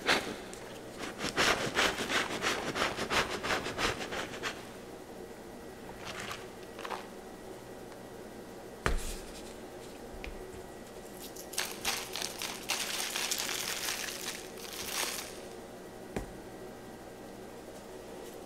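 Plastic shaker bottles squeezed and shaken to dust white powder and glitter over chalk blocks, in two runs of rapid crackly puffs and rattles. A single sharp knock about nine seconds in.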